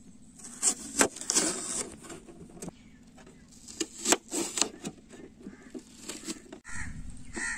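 Small knife cutting a red onion on a stainless steel plate: crisp cuts through the onion and sharp clicks as the blade meets the metal, coming irregularly.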